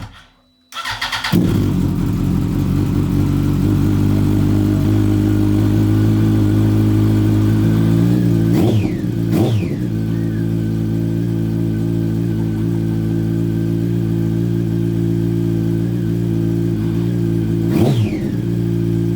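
Yamaha R1's inline-four engine starts about a second in and then idles steadily. It is blipped three times: twice in quick succession about halfway through and once near the end.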